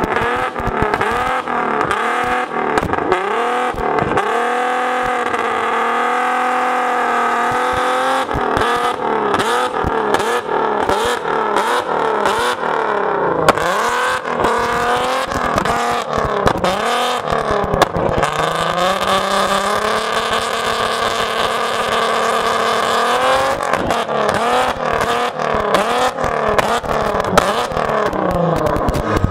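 Nissan 370Z's 3.7-litre V6 revved hard over and over, its pitch swooping up and down in quick bounces and held high for a few seconds twice, with the exhaust sounding loud.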